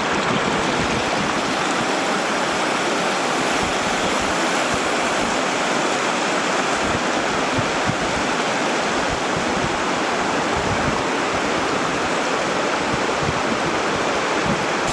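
Water rushing steadily in a spring-fed mountain stream, an even, unbroken hiss of running water.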